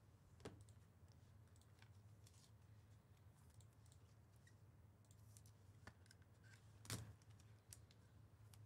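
Near silence: a low steady hum with a few faint clicks, the clearest just under seven seconds in.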